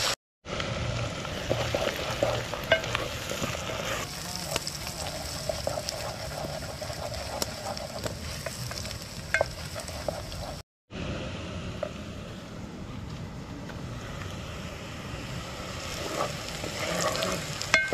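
Diced onions, garlic and ginger sizzling as they fry in coconut oil in an aluminium pot, stirred and scraped with a wooden spoon, with a few sharp knocks of the spoon on the pot. The sound drops out briefly twice, just after the start and about halfway through.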